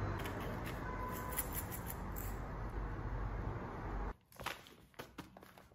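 Steady background noise with a low hum that cuts off abruptly about four seconds in, leaving a quieter room with a few light clicks and knocks.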